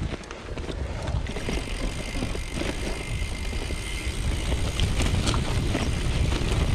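Gravel bike ridden along a rough, sandy off-road trail: steady wind rush on the action camera's microphone over the rolling noise of the tyres, with a few light clicks and rattles.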